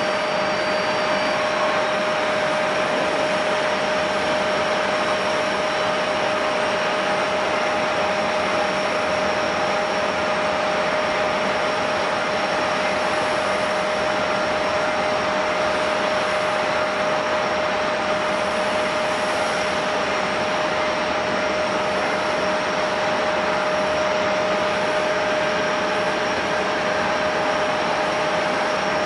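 Jet airliner engines running at a steady idle: an even rushing hiss with a constant whining tone that neither rises nor falls.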